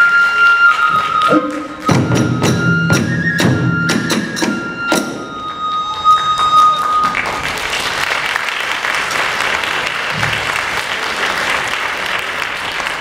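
Kagura hayashi: a bamboo transverse flute plays high held notes over rapid, hard strikes on a large barrel drum (ōdaiko), ending in a final flurry about five to six seconds in. From about seven seconds in, an audience applauds steadily.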